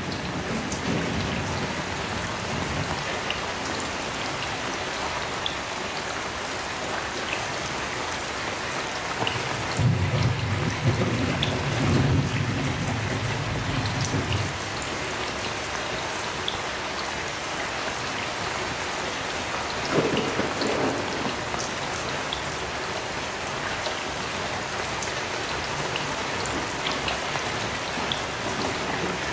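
Heavy rain falling steadily, with a low roll of thunder about ten seconds in and a shorter rumble near twenty seconds.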